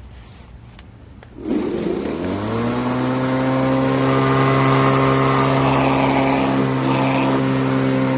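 A few light clicks, then about one and a half seconds in a Litheli 40V brushless cordless lawn mower's electric motor starts. Its whine rises for about a second as the blade spins up, then it settles into a steady pitched whirr.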